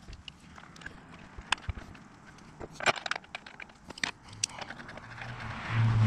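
Scattered clicks and metallic clinks of a hand tool and metal parts as a Harley-Davidson Sportster's air cleaner backing plate is bolted on, busiest about three and four seconds in. A low hum swells near the end.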